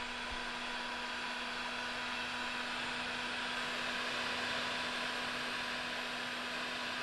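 Wagner heat gun running steadily, its fan blowing an even rush of air with a low hum.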